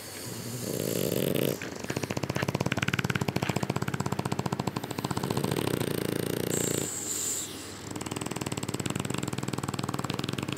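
French bulldogs snoring in their sleep: long, rattling snore breaths with a fast flutter, broken by short pauses between breaths.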